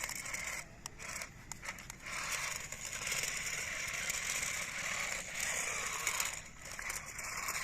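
Toy RC monster truck's small electric motor and gears whirring as it drives over rough ground, with tyres scrabbling; the whir comes in spurts and drops away briefly a few times as the throttle is let off.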